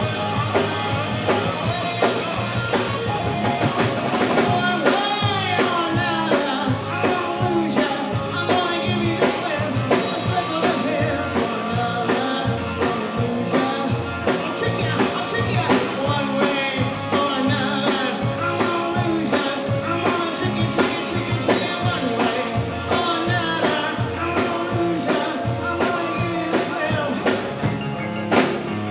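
Live rock band playing a song: drum kit, bass guitar and electric guitar with a sung lead vocal.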